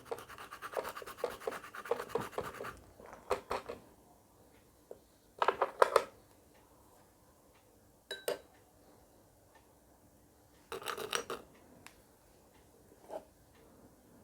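Whole nutmeg being rubbed back and forth on a wet surface to draw off its liquid: a quick run of short scraping strokes for the first few seconds, then a few brief scraping bouts with pauses between.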